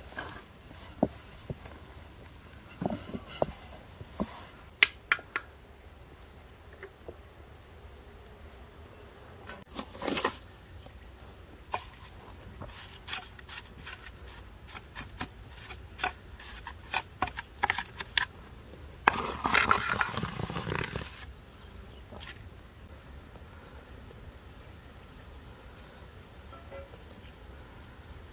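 A mason's trowel clicking, tapping and scraping on wet mortar and hollow clay bricks, a scattered run of sharp knocks with a louder two-second rush of noise about twenty seconds in. Under it, insects buzz steadily at a high pitch, and near the end that buzz is all that is left.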